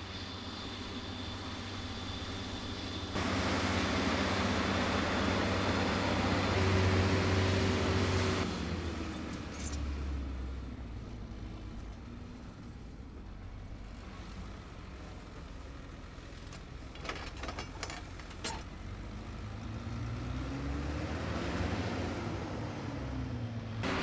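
Fendt Favorit 818 tractor's MAN six-cylinder turbocharged diesel running under load, pulling a four-furrow plough. The engine pitch falls about eight seconds in and slides up and down again near the end. A few sharp clicks come about two-thirds of the way through.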